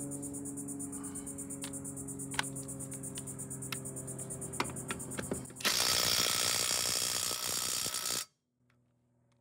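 Cordless impact wrench hammering on a car wheel's lug nut through a socket extension for about two and a half seconds, then stopping abruptly. Before it, a few light clicks as the socket and extension are fitted.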